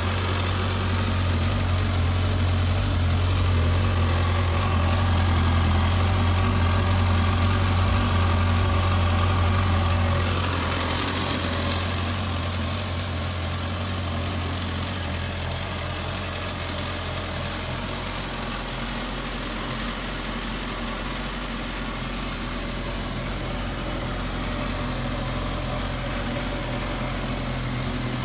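Suzuki GSX650F's inline four-cylinder engine idling steadily; louder for about the first ten seconds, then a little quieter.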